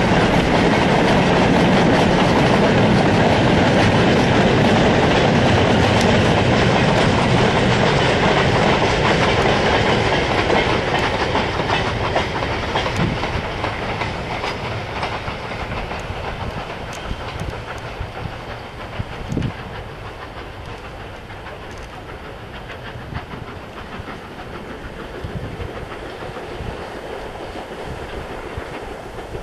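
Steam-hauled goods train of loose-coupled wagons rumbling and clattering over the rail joints as it passes, then fading steadily as it runs away into the distance.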